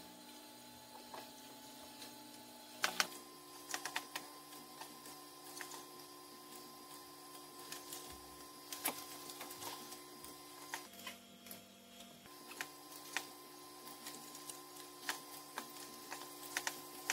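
Computer mouse clicks and keyboard keystrokes, short, sharp and irregular, over a steady electrical machine hum that shifts in pitch about three seconds in and changes briefly a little past the middle.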